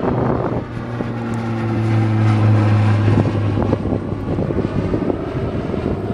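Beech 1900D twin turboprop's propellers and Pratt & Whitney PT6A engines droning with a steady low tone. The drone swells to its loudest a little over two seconds in, then fades out after about three seconds, leaving a rushing noise.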